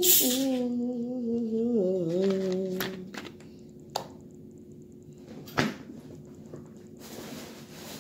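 Plastic root beer bottle twisted open with a short hiss of escaping carbonation, under a woman humming a few wavering notes for about three seconds. A few sharp knocks follow, the loudest about five and a half seconds in.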